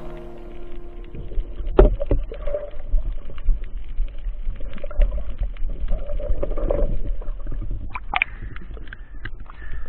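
Muffled underwater sound heard through a camera's waterproof housing: a steady low rumble of moving water with many small clicks and scattered knocks. The loudest knocks come about two seconds in and again about eight seconds in.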